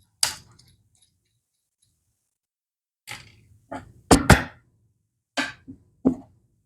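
Hard parts of a broken 3D-printed motor knocking and clunking as they are handled and set down: one sharp knock right at the start, then a string of about six short thunks from about three seconds in, the loudest two just after four seconds.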